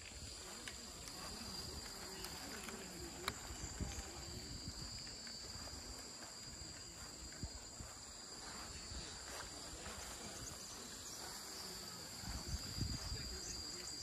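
Steady, unbroken drone of insects at two high pitches, with a walker's footsteps thudding softly underneath.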